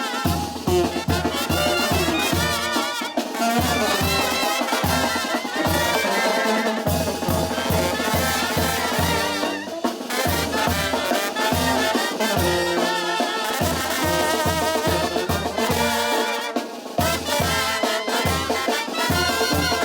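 Sinaloan banda brass band playing live: trumpets and trombones over drums and a pulsing tuba bass line of about three notes a second.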